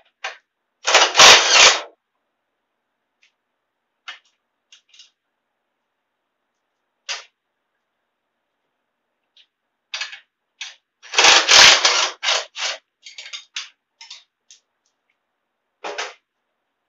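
Cordless impact wrench hammering on bolts in short bursts: a burst of about a second near the start, then a longer stuttering run of trigger pulls around ten to thirteen seconds in, with brief blips between.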